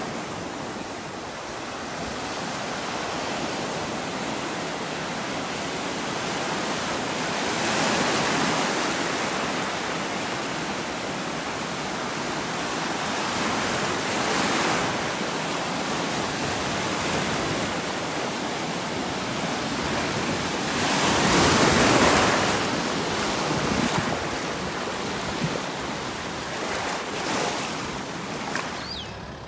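Ocean surf: waves breaking and washing in a steady hiss, swelling three times about six to seven seconds apart, the loudest a little past two-thirds of the way through.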